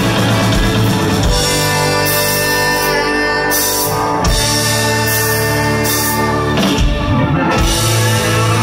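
Live rock band playing, with electric guitars and a drum kit: long held chords, then a quick run of drum hits about seven seconds in before the band comes back in.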